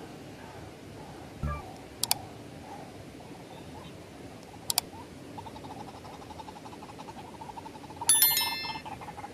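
Subscribe-animation sound effects: a sharp double mouse-click about two seconds in and again about five seconds in, then a bright notification-bell ding about eight seconds in. Under them a fast, steady pulsing animal call starts about five seconds in, with a short low thump about a second and a half in.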